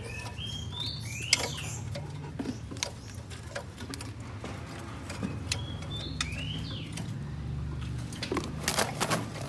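A songbird whistling two short phrases of stepped, rising notes about five seconds apart, among scattered light clicks and scuffles over a steady low hum.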